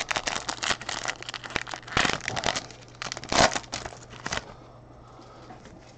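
Trading card pack wrapper crinkling and tearing as it is ripped open by hand. It makes a dense run of crackles that stops about four seconds in, leaving a faint low hum.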